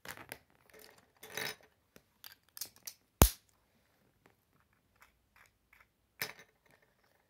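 Loose Lego pieces handled over a wooden tabletop: a thin plastic parts bag rustling, and small plastic pieces clicking and clattering, with one sharp plastic click about three seconds in.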